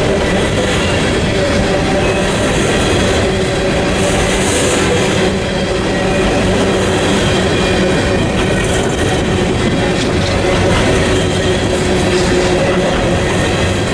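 Empty aluminum coal gondolas of a unit coal train rolling past on steel wheels: a steady, loud rolling rumble with a steady ringing tone from the wheels and occasional clacks.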